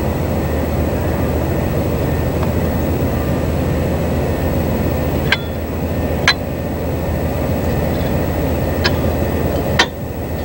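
Steady low rumbling background noise, with four sharp metallic clinks in the second half from a wrench and socket knocking against the camshaft pulley holder and pulley while the cam pulley bolt is worked loose.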